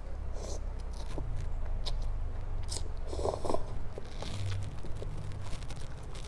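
Close-miked eating of spicy instant cup noodles with soup: chewing with small wet clicks and smacks, and a louder burst about three and a half seconds in, over a steady low hum.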